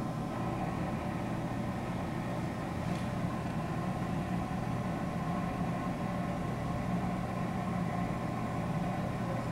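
A steady engine hum, like an idling vehicle, with a faint tick about three seconds in.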